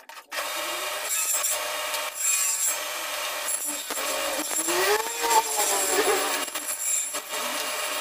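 Table saw running and cutting a groove into a small wooden block pushed across the blade on a sled. The sound starts abruptly just after the start, and around the middle the blade's pitch sags and recovers as it bites into the wood.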